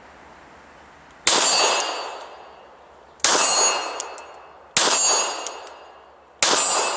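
Four shots from a Glock 26 9mm pistol, about a second and a half to two seconds apart. Each is answered by the clang of a hit on a 12-inch steel plate, which rings and fades over about a second.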